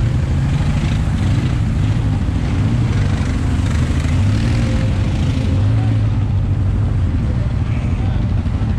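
Off-road vehicle engine running steadily while riding, with a few small rises and falls in engine pitch over the rumble of the ride.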